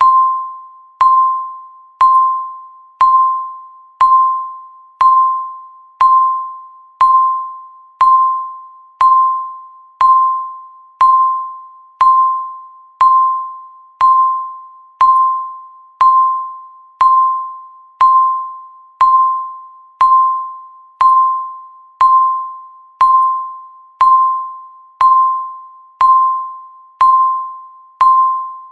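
Countdown timer beeping once a second: a single clear electronic tone that starts sharply and fades away before the next beep.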